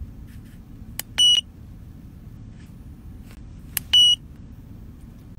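Foxwell NT201 OBD2 scanner giving two short, high keypress beeps about three seconds apart. Each beep follows the click of a button being pressed as the scanner is worked through its menu.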